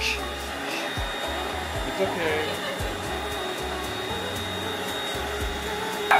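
Electric air pump running steadily on an air mattress, with a constant motor hum and rush of air.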